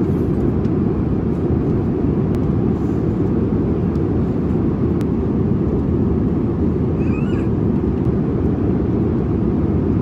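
Airliner cabin noise: a steady low rush of engines and airflow.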